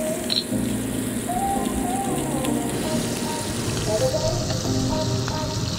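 Fish pieces sizzling steadily as they fry in butter in a nonstick pan, with background music carrying a melody over it.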